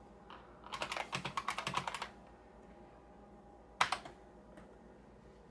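Keyboard of an IBM PS/2 Model 25-286 being typed on: a quick run of about a dozen keystrokes entering a short DOS command, then about two seconds later a single louder keystroke, the Enter key, that starts the directory listing.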